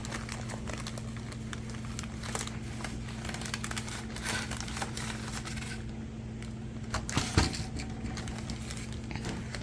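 Packaging of a model train box being handled: crinkling, rustling and small clicks, with a louder knock about seven seconds in.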